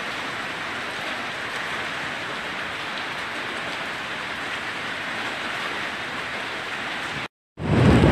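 Heavy rain falling in a steady, even hiss. It cuts out abruptly near the end, and louder wind buffeting the microphone follows.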